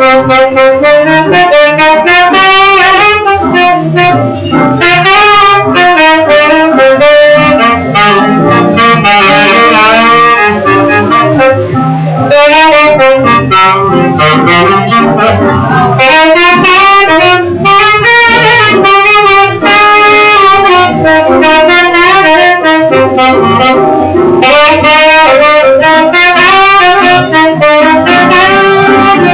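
Swing jazz playing loudly, with a saxophone carrying a busy melodic line of quick notes over the band.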